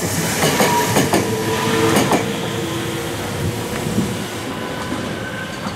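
A Meitetsu electric train, a 3500-series and a 3100-series set coupled together, running past with its wheels clacking over the rail joints in repeated pairs of clicks. A steady whine runs under the clacking, and both ease off in the second half.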